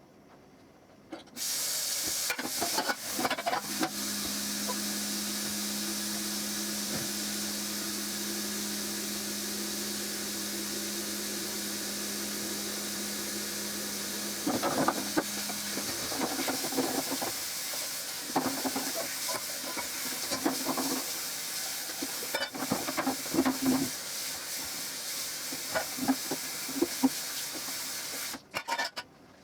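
Kitchen faucet running steadily into the sink while dishes are washed and rinsed, with plates and utensils clinking and clattering from about halfway through. A low hum runs with the water for the first half, and the water shuts off sharply near the end.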